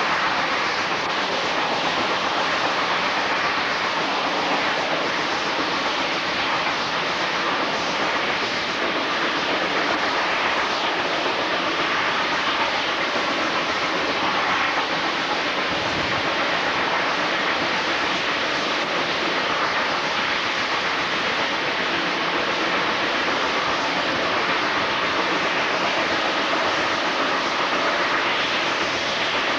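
Steam-hauled passenger train running steadily along the track, heard from a coach window as an even, unbroken noise of the moving train.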